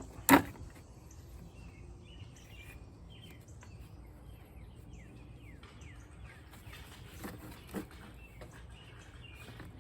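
A single sharp knock about a third of a second in, as of metal parts at the battery terminal. After it, small birds chirp in the background, with two faint knocks near the end.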